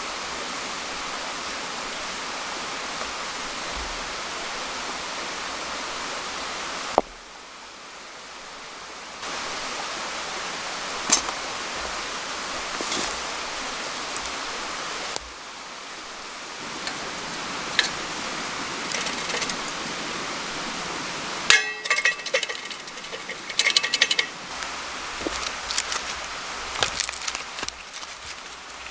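Steady rushing of a stream, cut off and brought back a few times by edits. In the second half, a run of sharp clicks and knocks sits over the water.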